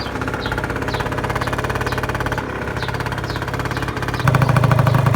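Genuine Roughhouse 50 scooter's 50cc two-stroke engine idling steadily just after starting, running through its LeoVince TT exhaust; it gets louder about four seconds in.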